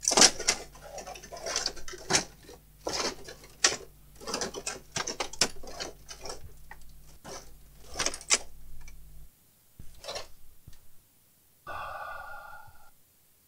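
Rummaging among small hard parts: a fast, irregular run of clicks and clatter that stops about eight or nine seconds in. A faint low hum cuts off about nine seconds in, and a brief pitched sound follows near the end.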